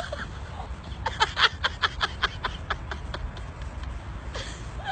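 A person laughing in a quick run of short, sharp bursts, thickest about one to three seconds in.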